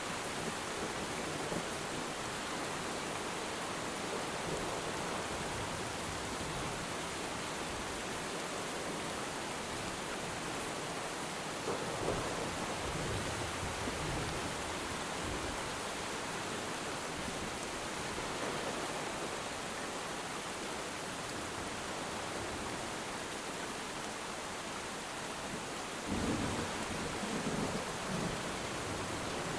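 Steady rain falling on water, with low rumbles of distant thunder about twelve seconds in and again near the end.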